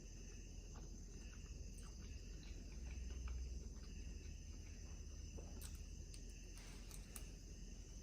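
Quiet eating sounds: a few soft clicks of food and utensils, over a steady, faint, high-pitched background whine and low hum.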